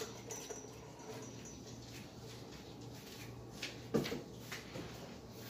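A few faint clicks and one dull knock about four seconds in, from handling things on a desk while the lighting is being changed, over a steady low hum.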